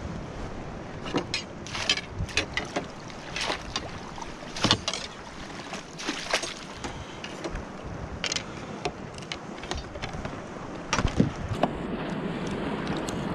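A hooked tautog thrashing at the surface beside a kayak as it is scooped into a landing net: a quick run of sharp splashes and knocks over the first half. A few loud knocks come near the end as the fish is handled onto a plastic measuring board.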